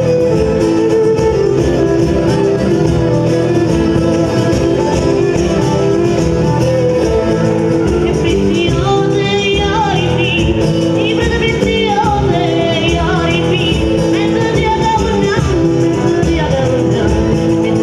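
Live southern Italian tarantella: a tambourine and guitars play a steady accompaniment, and a woman's singing voice comes in about eight seconds in.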